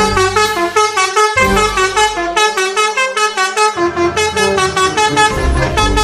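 Indonesian bus 'telolet' horn, a multi-tone horn playing a fast melody of short, bright notes.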